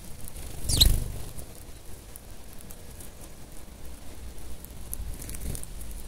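A flock of Eurasian tree sparrows pecking and foraging in scattered seed: a steady patter of many tiny high clicks and rustles. A brief, louder rush of sound comes about a second in, and a smaller one near the end.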